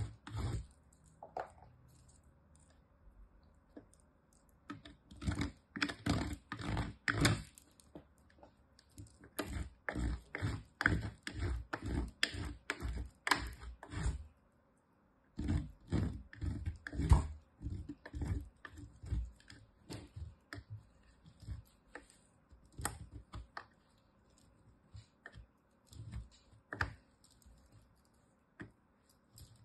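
A bar of soap scraped down a metal box grater in quick strokes, about three a second, in runs of several seconds with short pauses between; the strokes come sparser near the end.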